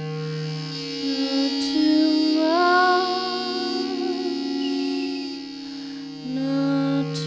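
Layered, steady drones of loudspeaker feedback from handmade speaker-and-microphone instruments. About 2.5 s in, a higher wavering tone slides up and holds over the drone. The drone shifts again near the end.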